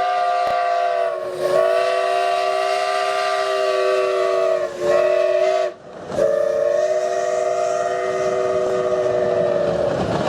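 Steam whistle of Sumter Valley Railway locomotive No. 19 blowing a chord of several steady tones in four blasts separated by short breaks, the last the longest.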